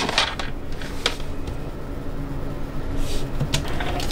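Steady low hum of a ship's cabin, with a few short clicks and rustles as a phone handset is handled, about once in each of the first three seconds.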